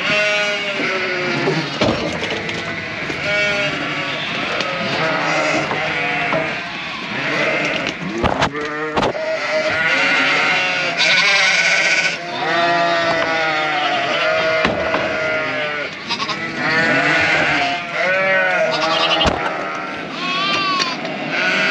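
A mob of ewes and lambs bleating, many calls overlapping without a break. A few sharp knocks come through about eight to nine seconds in and again near the end.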